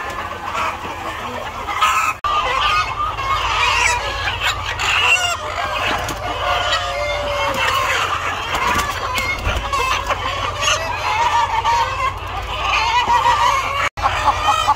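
A large flock of chickens clucking and calling all at once in a dense, continuous chorus. The sound drops out for an instant about two seconds in and again near the end.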